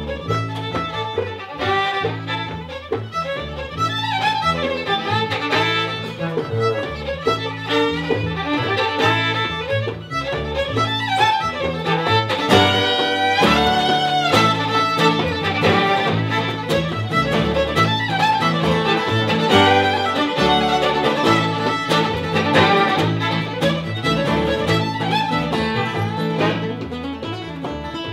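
Live folk instrumental: a fiddle playing a fast tune over double bass, with an acoustic guitar coming in partway through.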